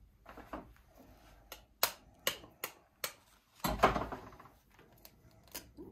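A string of sharp, irregular clicks, then a louder knock about four seconds in as an egg is cracked against the stainless electric skillet.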